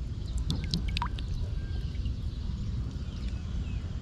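Water dripping and trickling from wet cupped hands, with a few short high ticks about half a second to a second in, over a steady low rumble.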